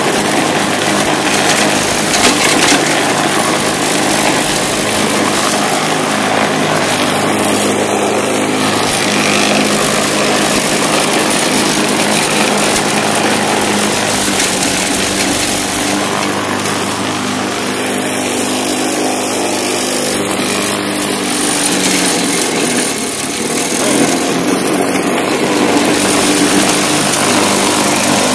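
Bolens mulching push mower's Briggs & Stratton engine running steadily under load while cutting grass. The owner thinks the mower vibrates badly from a bent shaft.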